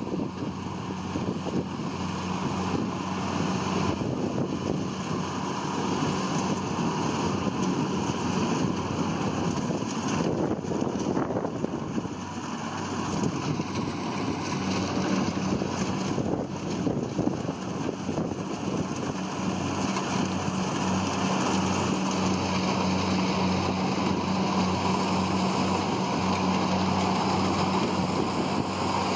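Kubota DC70 Plus combine harvester running steadily while cutting and threshing rice: a constant low diesel engine hum under a dense mechanical rattle from the cutter and threshing drum.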